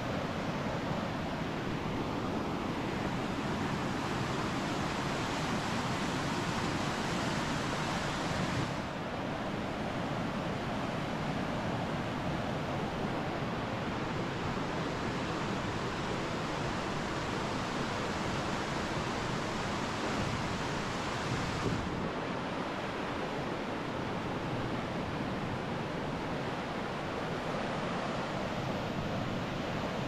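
Waterfall rushing: a steady, dense roar of falling water, its tone shifting slightly about nine seconds in and again after about twenty-two seconds.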